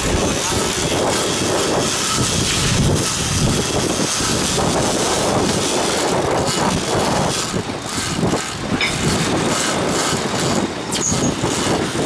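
Wind buffeting the microphone and rushing sea water on a boat under way in choppy open water: a loud, steady noise with gusty surges.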